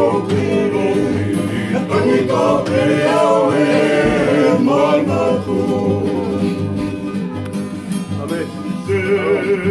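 Tongan kalapu string-band music: several men singing together in harmony over strummed acoustic guitars and a ukulele.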